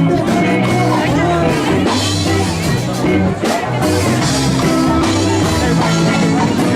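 Ska-punk band playing live, loud and steady: electric guitars, bass and drum kit with a singer's voice over them.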